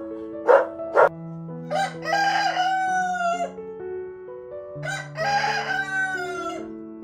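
Rooster crowing twice, two long cock-a-doodle-doo calls a few seconds apart, each falling in pitch at the end.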